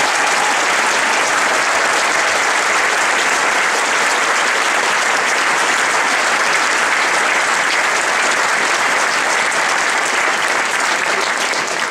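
Steady applause from a large audience, many hands clapping at once, easing off slightly near the end.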